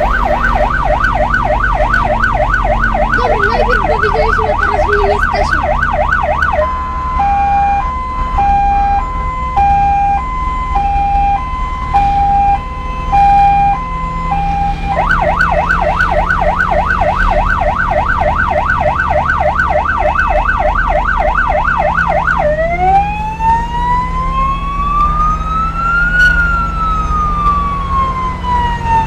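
Electronic vehicle siren cycling through its modes: a fast yelp sweeping up and down several times a second, then an alternating two-tone hi-lo, the yelp again, and a slow wail that rises and falls once. Engine and road rumble run underneath.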